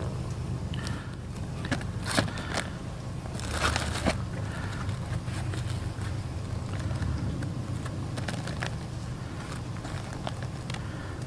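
Plastic bags crinkling and a bread roll being pulled open by hand: a few sharp crackles, loudest about two and four seconds in, over a steady low rumble.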